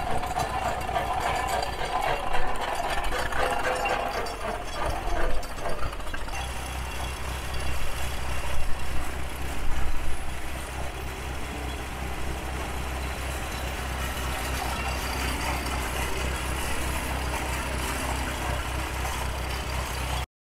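Antique tractor engine running with a steady, even beat, a little louder for a few moments in the first half.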